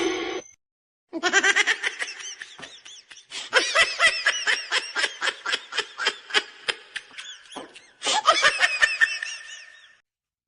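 A person laughing hard in a long run of rapid, high-pitched bursts, with a short break about seven and a half seconds in before the laughter picks up again.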